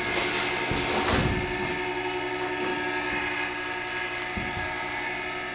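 K.O. Lee tool and cutter grinder running steadily, its motor and spindle giving an even whine with a few fixed tones. A couple of dull knocks come in the first second or so.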